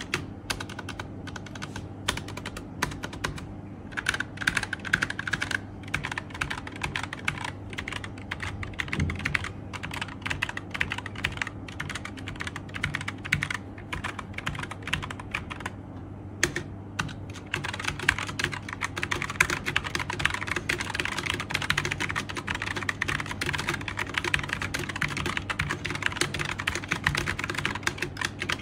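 Typing on a Mikit CL80 Marmalade low-profile mechanical keyboard: a continuous run of key clacks, fairly sparse at first, then faster and denser from a little past halfway.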